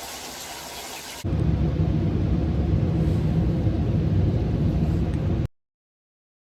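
Shower water running: a steady hiss, then about a second in a louder, deeper rushing of water, which cuts off abruptly near the end.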